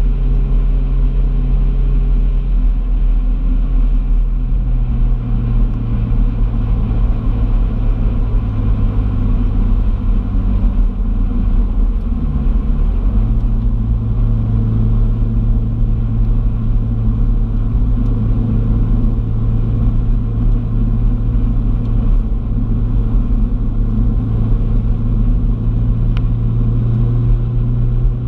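Car driving along: a steady engine drone over low road rumble, with a brief dip and recovery in engine pitch about twelve seconds in.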